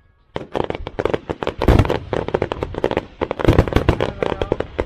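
Fireworks going off: a dense, irregular run of sharp cracks and bangs, starting a moment in after a brief quiet.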